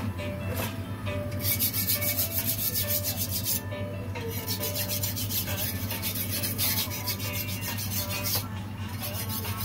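Background music with a steady beat, with a rhythmic scraping percussion that comes in twice for about two seconds each.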